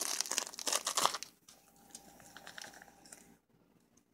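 Flexible corrugated plastic dryer tube crinkling and crackling as it is handled and moved, loudest in the first second or so, then fainter scattered crinkles and clicks.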